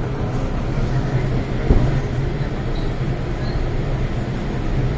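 Interior sound of an MTR M-Train metro carriage: a steady low rumble and hum as the train draws to a stop at a station platform. A single thump comes a little under two seconds in, the loudest moment.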